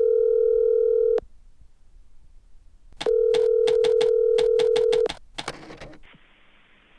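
Telephone dial tone that stops about a second in, returns about two seconds later with a quick run of clicks over it as a number is dialled, then gives way to the faint hiss of a connected phone line.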